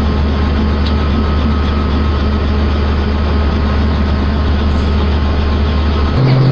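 Helicopter running on the ground, heard from inside the cabin: a loud, steady low drone from the engine and turning rotor that steps up sharply in pitch about six seconds in.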